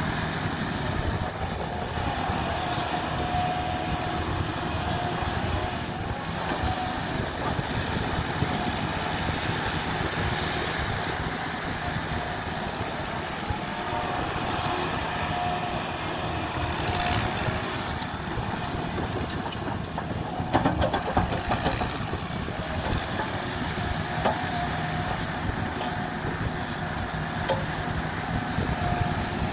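Kobelco SK220 excavator's diesel engine running under load as it digs and dumps soil, with a higher-pitched tone that comes and goes. A few sharp clanks come about twenty seconds in.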